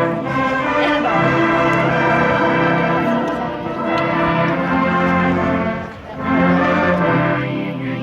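College marching band playing, led by brass horns and trombones holding long chords, with a brief drop about six seconds in before it comes back loud.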